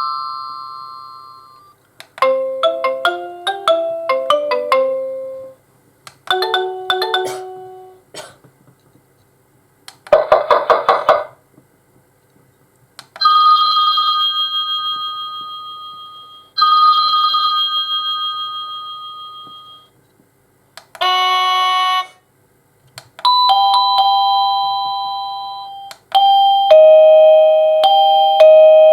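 AVANTEK D-3B wireless doorbell receiver playing about eight of its built-in electronic chimes, one after another with short gaps. They include short melodic tunes, a rapid ringing trill, several ding-dong tones that fade out, and one brief steady buzz that cuts off sharply.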